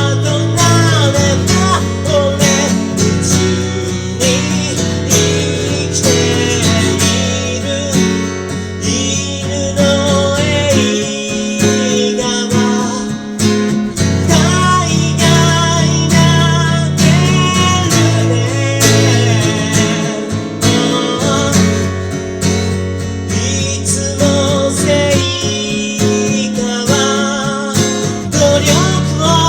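A man singing a song over strummed acoustic guitar chords.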